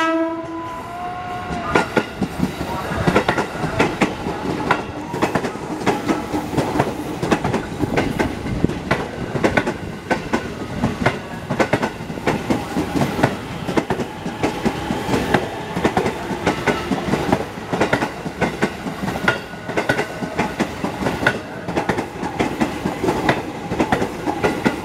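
KRL Commuter Line electric multiple unit passing close at speed, its wheels clattering in a dense, irregular run of clicks and knocks over the rail joints and switches of a junction, over a steady rumble. At the very start the tail of a horn blast dies away within the first second or two.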